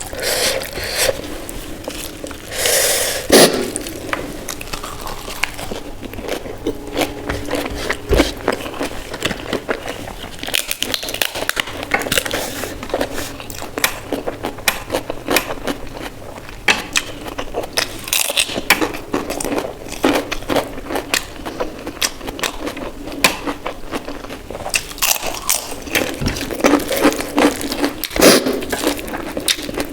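Close-miked eating sounds: chewing, smacking and scraping while eating dal, rice and mashed potato, with a few crisp crunching bites of papad. The sound is a steady run of small wet clicks, broken by a few sharper crunches.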